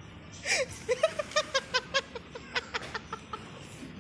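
A small child's high voice: a short rising-and-falling squeal about half a second in, then a quick run of short giggles, about five a second, fading out near the end.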